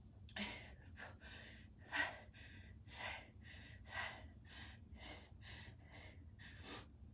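A woman breathing hard and rhythmically during one-arm kettlebell rows, with a sharper exhale on each pull about once a second and quicker breaths in between.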